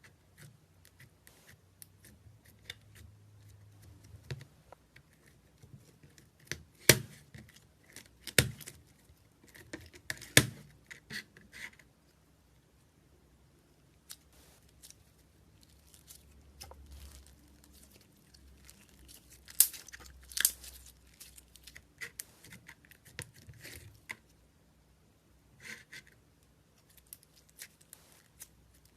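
Slime being handled: scattered sticky clicks and crackles, with a few loud sharp pops, three close together about a third of the way in and two more past the middle.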